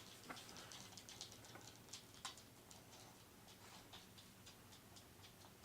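Near silence with faint, irregular small clicks and ticks scattered through it.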